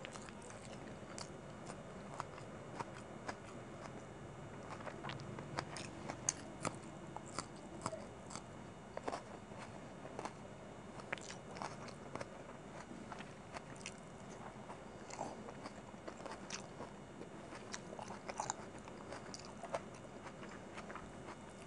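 Close-miked mouth chewing chicken biryani eaten by hand: wet chewing with many small, irregular clicks and crunches.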